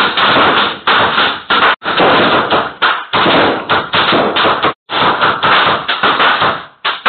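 Sustained rapid gunfire, the shots running together into a dense string broken by a few short pauses, picked up by a porch security camera's microphone.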